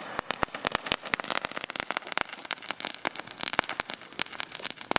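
Ground fountain firework spraying sparks with a rapid, irregular crackle of many small sharp pops.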